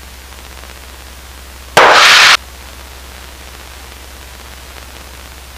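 Cockpit headset audio from the aircraft radio and intercom: a steady low hiss and hum, broken about two seconds in by one loud half-second burst of static, like a radio squelch break or a keyed microphone.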